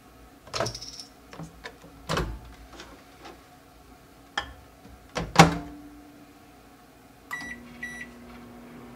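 Countertop microwave oven being loaded: clicks and knocks of the door opening and a cup going in, then a hard clunk of the door shutting about five and a half seconds in. Near the end, two keypad beeps, and the microwave starts running with a steady low hum.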